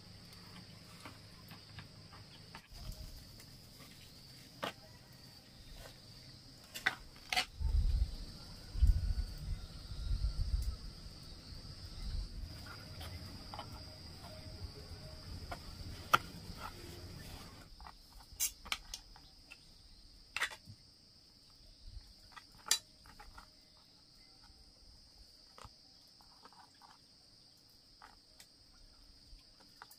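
A steady high drone of insects in the background, with scattered light clicks and taps and a few dull low thumps about eight to eleven seconds in.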